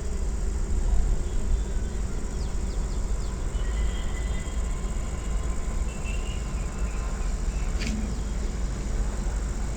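Steady low rumble with a few faint, short high chirps from a parrot, and one quick rising whistle about eight seconds in.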